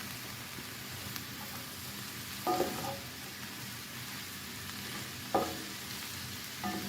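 Cabbage sizzling steadily in butter and olive oil in a cast iron skillet, with the clatter of stirring in the pan twice.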